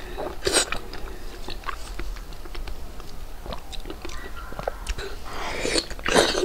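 Close-miked wet chewing of soft braised pork belly, with many small mouth clicks and smacks. A louder bite into a fresh piece comes near the end.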